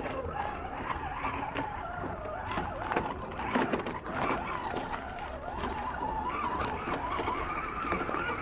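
RC4WD Gelande II FJ40 scale crawler's electric motor and gearbox whining as it crawls over rocks, the pitch rising and falling with the throttle and climbing in the second half, with tyres and chassis clicking on the stones.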